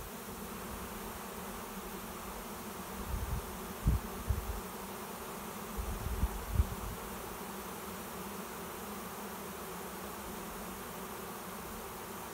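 A swarm of honey bees buzzing steadily in the air as it settles into a swarm trap. A few short low bumps stand out about three to four seconds in and again around six seconds in.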